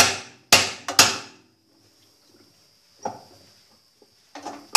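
Small hammer striking a left-hand-threaded nut inside a GE 15 kg washing machine's drum to drive it tight so it cannot work loose again. Three sharp strikes come in quick succession, then a softer knock about three seconds in, and the blows start again near the end.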